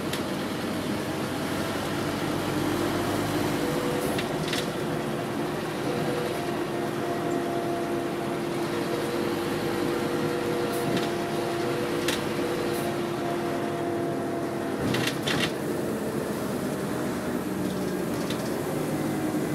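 Inside a Scania Omnideka double-decker bus: steady engine hum with a few sharp clicks and rattles from the body and fittings, the loudest pair about fifteen seconds in.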